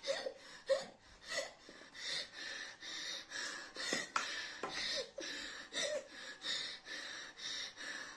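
A woman gasping for breath in quick, hard breaths, about two a second, with short catches in the throat from hiccups. Her mouth is burning from the Jolo chip's chili heat.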